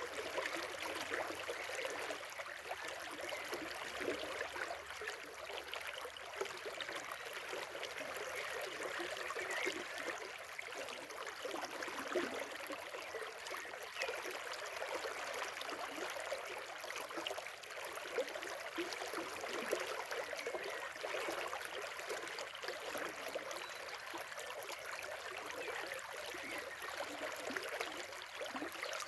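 River water flowing steadily, a continuous babble of running water.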